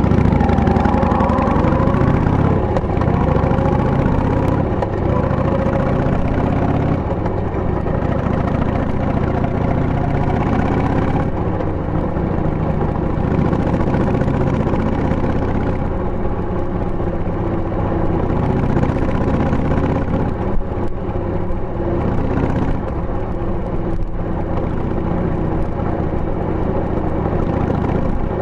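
2000 Harley-Davidson Sportster 883's air-cooled V-twin Evolution engine running under way through tapered mufflers with the baffles fitted. The engine note rises and drops several times as the bike changes speed.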